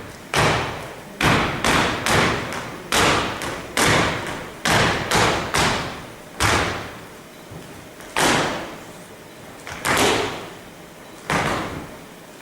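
Feet stamping heavily on a stage floor in a dance without music. The stamps come quick and uneven for about six seconds, then only every second or two, each one ringing on briefly.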